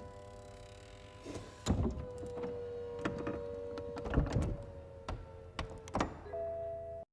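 BMW 4 Series Convertible's electric three-piece retractable hardtop stowing into the trunk: a steady motor whine, broken by several clunks and thunks as the roof panels and trunk lid move and latch.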